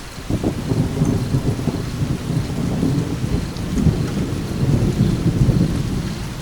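Thunder rumbling over steady rainfall: a long, low rolling rumble that starts just after the beginning, swells and fades near the end, over an even hiss of rain.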